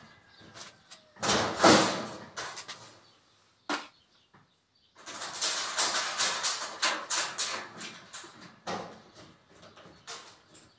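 Hand tool working at the sheet-metal back of a Vortex gas cooker while its oven jet is being changed: irregular metallic scraping, clicking and rattling. There is a loud scrape a bit over a second in, and a quick run of clicks and rattles from about five seconds in.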